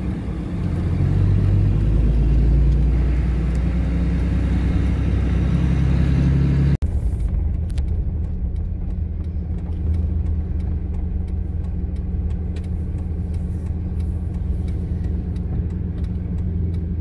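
Cab-interior sound of a Dodge Ram 3500's turbo Cummins diesel on the move: a steady low engine and road rumble. It changes abruptly about seven seconds in, after which the rumble goes on with scattered light clicks and rattles on a dirt road.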